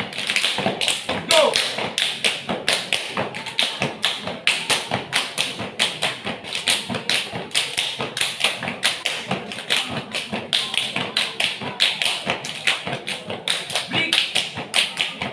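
Step dance by a group of performers stamping on concrete and clapping in unison, a steady beat of sharp hits about three to four a second.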